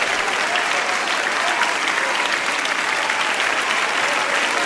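Audience applauding steadily, a dense patter of many hands clapping, with a few faint voices calling out over it.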